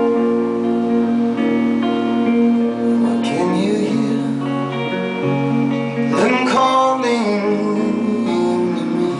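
Live band playing a slow song after a chorus, guitars strumming over sustained chords, with a few sliding notes.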